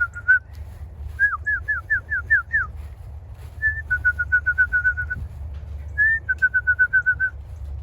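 A person whistling to call racing pigeons in to the loft: a run of short falling whistles, then twice a higher note followed by a quick string of short whistles at one pitch.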